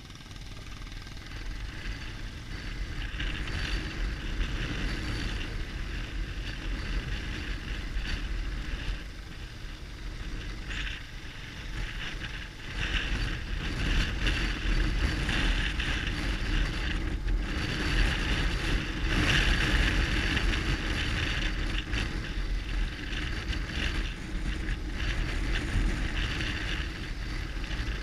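BMW R1200GS Adventure's flat-twin engine running under way on a dirt track, mixed with wind rushing over the microphone. It gets louder a few seconds in and again about halfway through.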